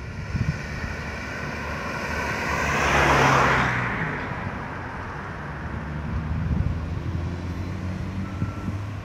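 A car passing close by: engine and tyre noise swell to a peak about three seconds in, then fade, over a steady low hum of traffic.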